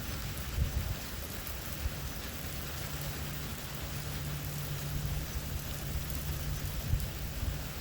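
Steady hiss of heavy thunderstorm rain, with low rumbling underneath and brief thumps about half a second in and near the end.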